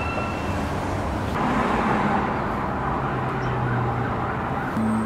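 Steady road traffic noise with a low engine hum that steps up in pitch near the end.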